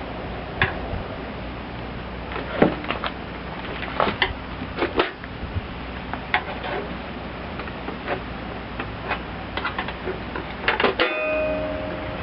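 Irregular sharp clicks and knocks of hand tools and loose metal parts as the shroud and recoil starter come off a Briggs & Stratton mower engine. A short metallic ring sounds about eleven seconds in, over a steady low hum.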